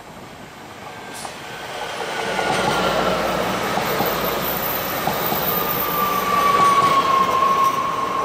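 Double-deck TER regional passenger train passing close by at speed, its wheels and rails rushing louder as it goes past. A whine falls slowly in pitch through the pass.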